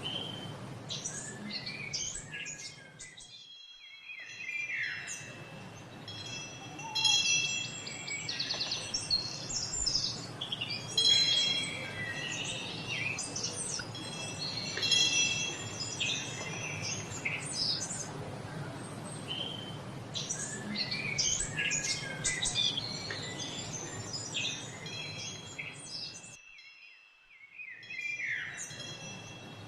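A chorus of songbirds chirping and trilling, with chimes ringing in long, steady tones beneath them. The sound dips almost to silence for a moment near the end.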